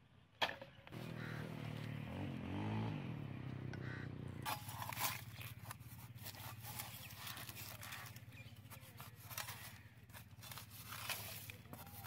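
A flat metal hand blade scraping and digging into dry, stony ground, heard as many short scrapes through the second half. Before that comes a low droning hum that wavers in pitch, and a sharp click about half a second in.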